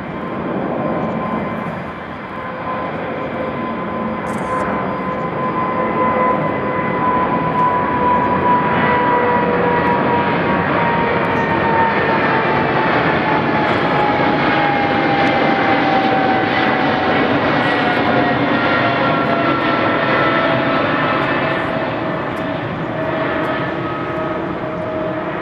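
Boeing 777F freighter's twin GE90 turbofans at climb thrust just after takeoff, passing overhead: a loud jet roar that builds and then holds. Over it, an engine whine slowly falls in pitch as the aircraft goes over and away.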